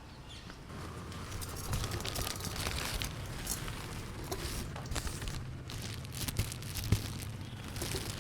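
Soft rustling and crinkling with many scattered light clicks and taps, and one sharper tick about seven seconds in, over a low steady background rumble.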